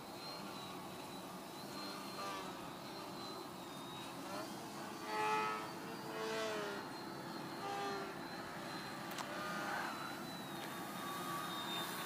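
Motor and propeller of a radio-control Edge 540T model aerobatic plane in flight, with a thin steady high whine and a pitch that rises and falls several times as the throttle and distance change. It is loudest about five seconds in.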